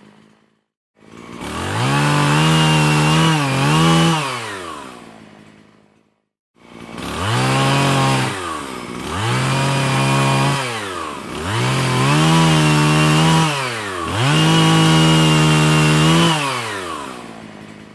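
Chainsaw revved up five times. Each rev climbs in pitch, holds steady for a second or two and falls back. The sound drops to silence briefly about half a second in and again around six seconds in.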